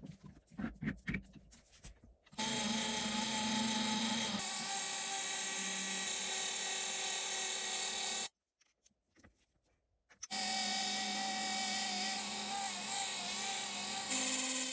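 Metal lathe running, turning an aluminium bar: a steady machine whine made of several fixed tones. A few knocks come first. About eight seconds in it cuts out abruptly for two seconds, then runs on.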